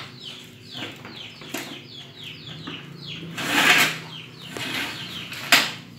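Manual cup screen-printing press worked by hand for a test print on paper: a scraping stroke about three and a half seconds in, then a sharp clack about two seconds later. High, short, downward chirps from chickens repeat throughout.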